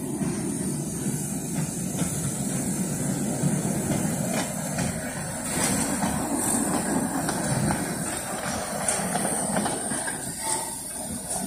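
A small motorised rail trolley running slowly along narrow-gauge track, making a steady low engine noise with occasional clicks of its wheels over the rail joints.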